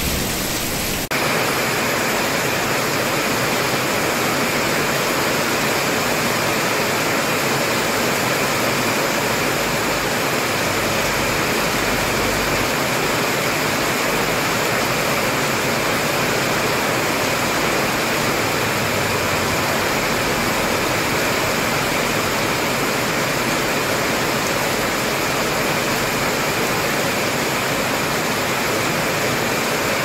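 Heavy rain falling steadily, a dense even hiss. About a second in it changes abruptly to a brighter, heavier downpour.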